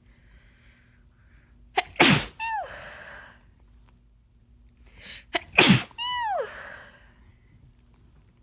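Two wet sneezes from a woman with a head cold, about three and a half seconds apart. Each is a sharp burst ending in a voiced cry that falls in pitch, with faint breaths drawn in before it.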